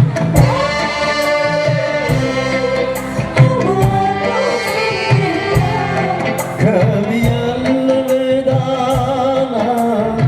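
Live dangdut band playing loud through a PA: a gliding melody over a steady, regularly struck hand-drum beat.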